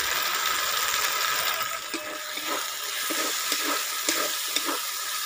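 Onion, tomato and spice paste frying in oil in a large metal kadai, sizzling steadily. From about two seconds in, a wooden spatula stirs it in repeated strokes, about two a second. This is the masala being fried down after turmeric is added.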